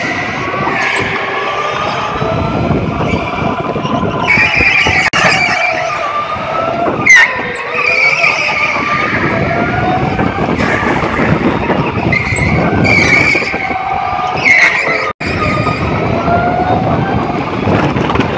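Electric go-karts racing on an indoor track: several motors whining, their pitch rising and falling as they speed up and slow through the corners, with repeated tire squeals.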